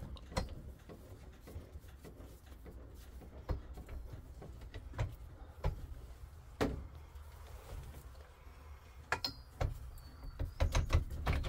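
Scattered metal knocks and clanks as pipe and tools are handled at a Ridgid 300 pipe threading machine, with a cluster of quick knocks near the end, over a low rumble.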